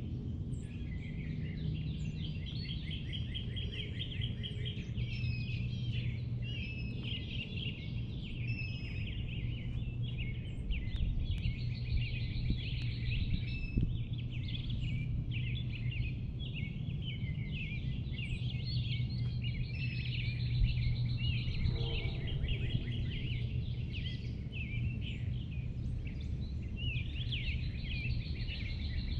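Several songbirds singing at once, a dense run of overlapping chirps and trills, over a steady low hum of background noise.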